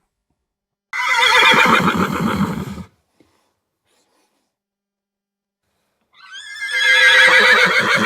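Horse neighing twice: two quavering whinnies of about two seconds each, the first about a second in and the second some four seconds later, with silence between.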